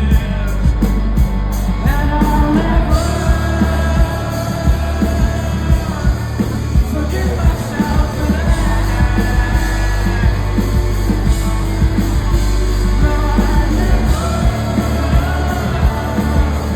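Indie rock band playing live through a PA: amplified guitars, bass and drums with a lead vocalist singing over them, the bass heavy and continuous.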